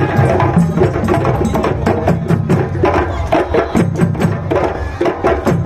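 Japanese festival percussion ensemble playing a fast, dense rhythm of quick drum strokes, with some pitched ringing over the top.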